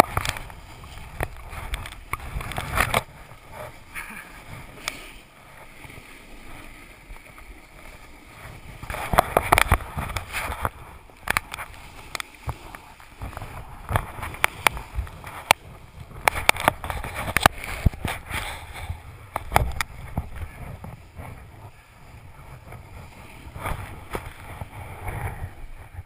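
Snowboard scraping and carving over packed snow during a run, a rushing noise that swells and fades with many sharp knocks scattered through it.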